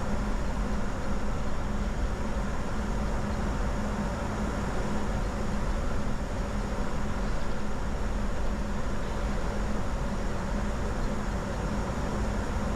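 Steady flight-deck noise of a Bombardier Challenger 605 in flight: even rushing airflow with a constant low hum, unchanging throughout.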